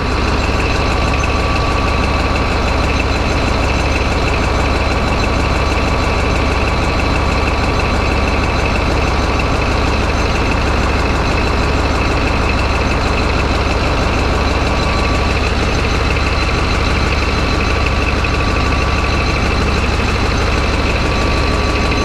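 CAT D11 bulldozer's diesel engine running steadily at idle while its air-conditioning system takes on refrigerant, a deep unbroken rumble with a steady high whine over it.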